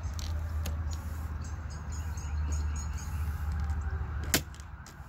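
Small clicks and then one loud, sharp snap about four seconds in, as an in-channel window deflector is squeezed by door glass being raised in small steps, over a steady low hum.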